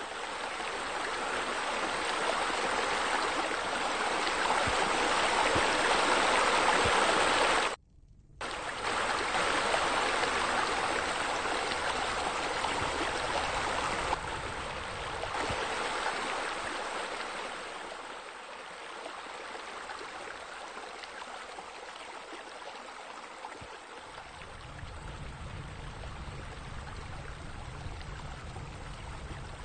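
Steady flowing water from a pool water feature, a spa spillover pouring into the pool. The sound cuts out for a moment about eight seconds in, grows quieter past the middle, and a low rumble joins it near the end.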